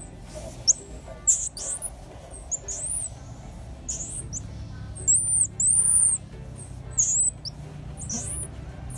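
Baby marmoset-type monkey giving repeated high-pitched squeaky chirps, short arching whistles about ten times, some in quick pairs.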